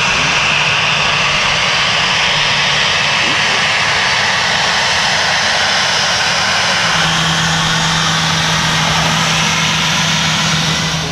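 Boeing 737 jet engines running at low power as the airliner taxis past: a loud, steady jet rush with a low steady hum that grows stronger about seven seconds in. The sound drops away abruptly near the end.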